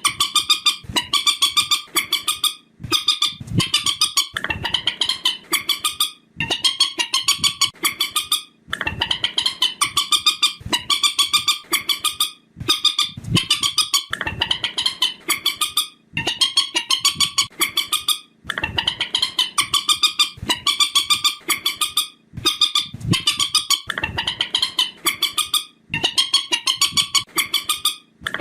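Recorded call of the trích ré, a Vietnamese marsh bird, played on a loop as a hunting lure: long strings of rapid, evenly repeated high notes, each string lasting a few seconds and broken by short pauses.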